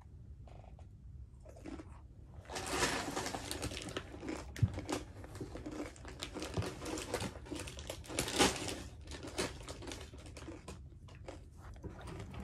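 Foil wrapper of a Pokémon booster pack crinkling as it is handled and opened by hand, starting about two seconds in, with many sharp crackles.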